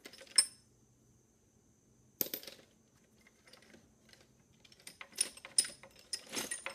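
Metal tools clinking and rattling against each other: a sharp clink near the start, another about two seconds in, then a run of light clicks and clinks from about five seconds on.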